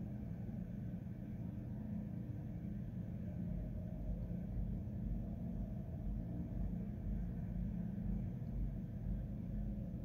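A low, steady rumble of background noise with no music or voices, growing a little stronger in the lowest range after about three seconds.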